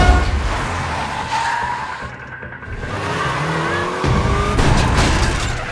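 Police cars skidding up with tires squealing over a low engine rumble, part of a film's car-chase sound mix. Squeals come in short sliding pitches, loudest at the start and again about four seconds in.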